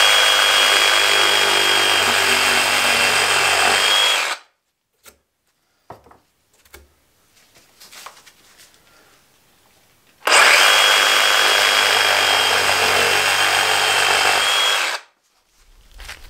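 DeWalt DCS382 20 V cordless reciprocating saw cutting through a thick cardboard tube. It runs steadily twice, each time for about four to five seconds, with a few seconds of light handling sounds between the two runs.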